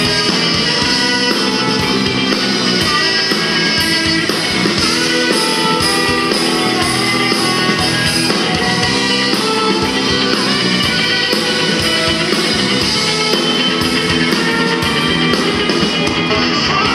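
Live rock band playing: electric guitar over bass guitar and drum kit, with a saxophone.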